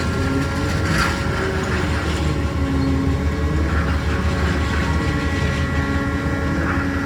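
Hrubetz Hurricane carnival ride running, a steady low machine rumble with a few held tones over it.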